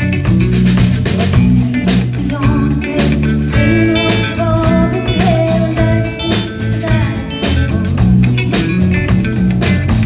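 Live country-rock band music played loud through the PA: electric guitar, bass guitar and a drum kit keeping a steady beat.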